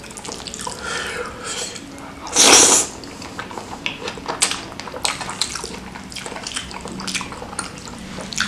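Close-miked mukbang eating of mie ayam (Indonesian chicken noodles): wet chewing and mouth clicks throughout, with one loud slurp of noodles about two and a half seconds in.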